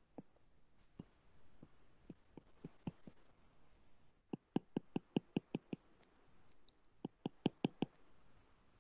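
Stylus tip tapping on a tablet's glass screen while drawing: scattered light clicks, then two quick runs of about five clicks a second as hatching strokes are laid down.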